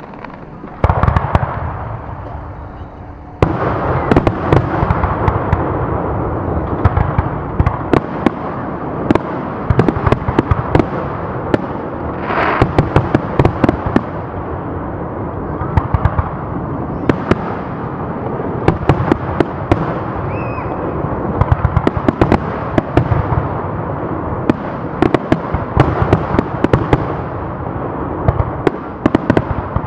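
Fireworks display: aerial shells bursting in a dense barrage of bangs over constant crackling. It starts about a second in and grows much denser a couple of seconds later.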